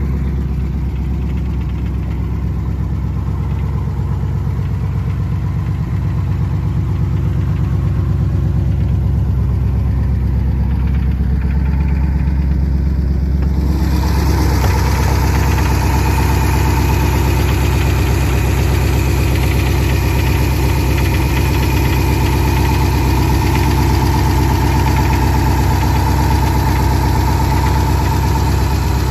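A 1964 Studebaker Avanti's 289 V8 idling steadily. About halfway through, the sound gets brighter, with more hiss and a steady whine joining in.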